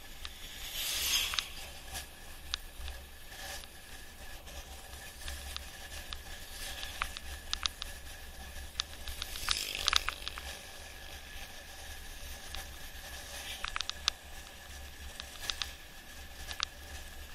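Mountain bike coasting downhill on a concrete road, heard from a camera mounted on the rider: steady wind rumble on the microphone with scattered clicks and rattles from the bike over the road's joints, and two brief louder rushes about a second in and about ten seconds in.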